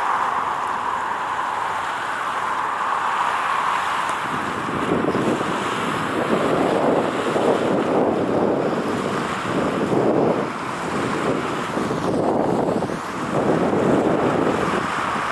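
Wind buffeting the microphone in irregular gusts, starting about four seconds in, over a steady background hiss.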